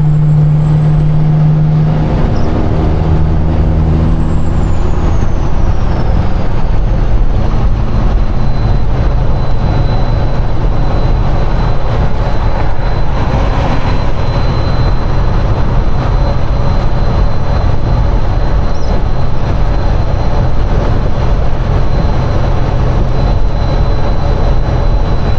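A Peterbilt semi truck's diesel engine pulling down the highway with tyre and road rumble. The engine note breaks and shifts about two seconds in, then settles into a steady run.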